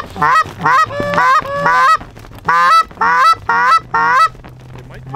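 Short-reed goose call blown in quick runs of honks and clucks, calling to approaching Canada geese, with a short break about two seconds in.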